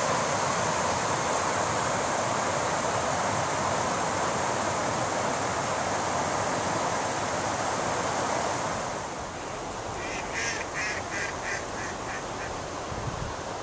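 Water pouring over a low river weir, a steady rushing; about nine seconds in it drops to a softer flowing-river sound. Near the end a bird calls in a quick run of about eight short notes.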